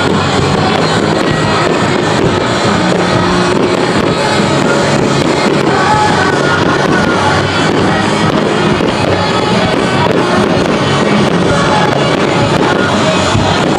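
Rock-style music with guitar plays loudly and steadily, with the bangs and crackle of fireworks bursting beneath it.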